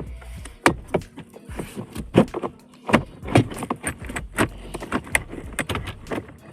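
Irregular clicks, knocks and rattles of plastic parts being worked loose under a car's dashboard while the blower motor housing is freed.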